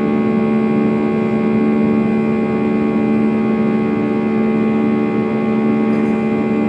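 Airliner's turbofan jet engines running at climb power, heard inside the passenger cabin: a loud, steady rush with several held tones that do not change pitch.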